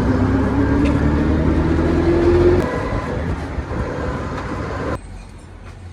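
Motor vehicle engine accelerating, with a heavy low rumble and a rising whine over about two and a half seconds. It then eases off and cuts off abruptly about five seconds in.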